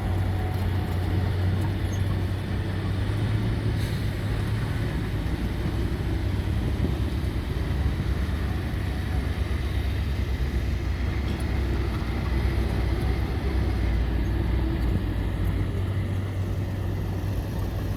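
A 12-wheel dump truck's diesel engine runs steadily with a low drone. Its note drops lower about four seconds in and comes back up near the end.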